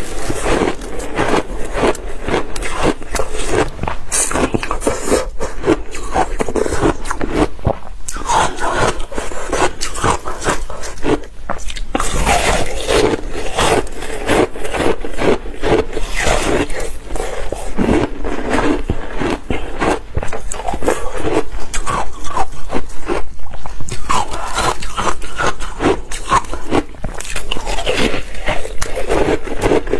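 Ice being bitten and chewed close to the microphone: a dense run of crisp cracks and crunches with a few brief pauses between bites.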